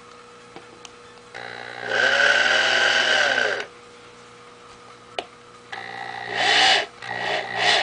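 DeWalt electric drill with a 1/4-inch bit boring into the hollow, rubber-overmolded synthetic stock of a Remington 700 rifle. There is one run of about two seconds whose motor pitch rises and then falls. After a pause with a single click, a softer run and several short trigger bursts come near the end.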